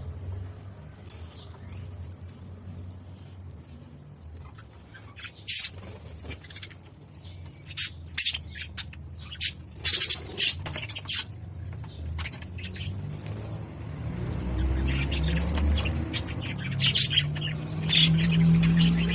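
Young budgerigar chirping: scattered short, sharp chirps that turn into denser chatter in the last few seconds.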